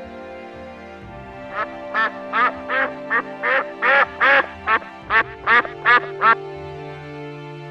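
Duck quacking: a run of about a dozen quacks starting about a second and a half in, over steady background music.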